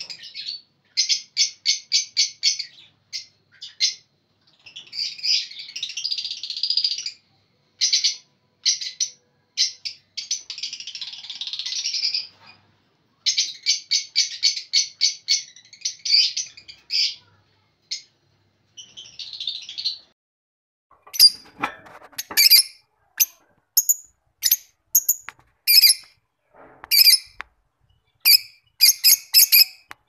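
Lovebirds calling: rapid strings of high, buzzy chirping chatter in quick runs, changing about two-thirds of the way through to sharper, separate single chirps repeated every half second or so.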